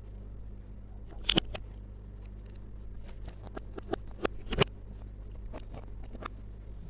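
Small plastic toy pieces handled and set down, making scattered light clicks and taps, with two louder clacks, one about a second in and one past the middle, over a steady low hum.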